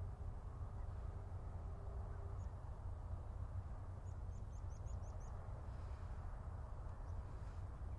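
Outdoor ambience: a steady low rumble, with a bird giving a quick run of about six short high chirps around four to five seconds in.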